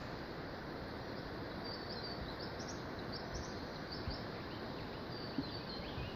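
Steady rush of flowing river water, with a small bird chirping a few times, high and brief, over it.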